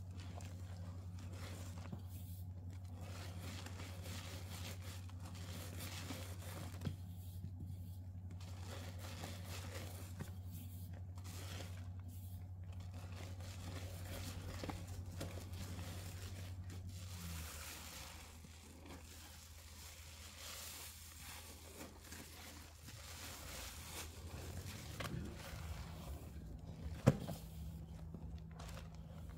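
A sponge soaked with dish soap squeezed and released by hand: soft crackling and squishing of foam that swells and eases with each squeeze, over a steady low hum. One sharp click near the end.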